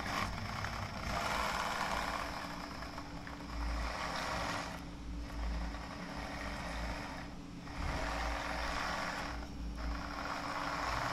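A 3D printed scale hydraulic excavator running, its motor-driven triple piston pump working as the boom and bucket move. The running sound drops out briefly three times as the controls are worked.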